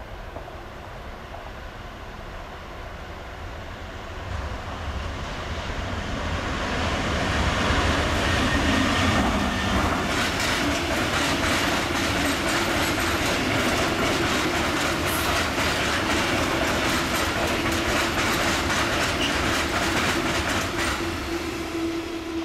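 Freight train of red bulk hopper wagons passing close by. It grows louder as it approaches, then a long run of wheel clatter over the rail joints follows, with a steady squeal growing in the second half.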